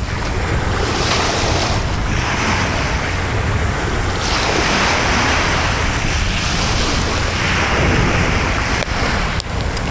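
Wind buffeting the microphone over the rush of surf on a beach: a loud, steady noise that swells and eases every couple of seconds.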